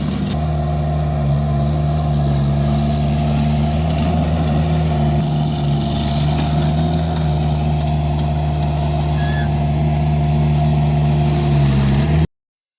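Vermeer mini skid steer's engine running at a steady speed, cutting off abruptly about twelve seconds in.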